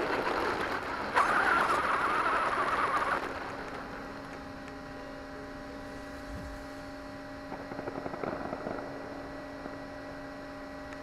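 Radio-controlled monster truck, heard from its onboard camera, running over gravel with motor whine and tyre noise for about three seconds, then stopping. After it stops, only a steady electrical hum remains.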